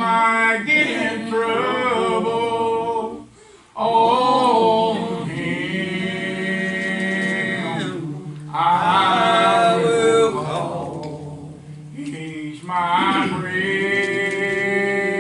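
Gospel song being sung, with long drawn-out notes and short breaks between phrases about three and a half, eight and twelve seconds in.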